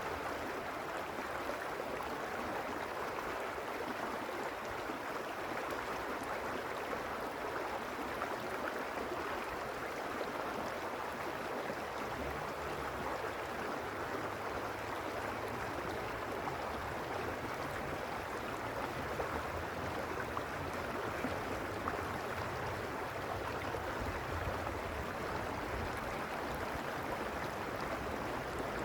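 Mountain stream running steadily over rocks, a continuous rushing and gurgling of water.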